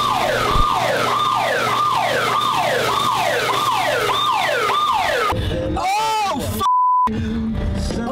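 A loud siren-like whoop, falling in pitch and repeated quickly, less than a second apart, for about five seconds. It gives way to a warbling tone and then a short steady beep.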